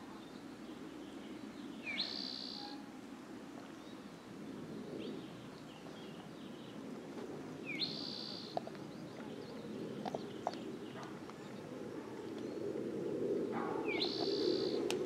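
A bird calling three times, about six seconds apart. Each call is a quick upward sweep into a short held high note, over a steady low background noise.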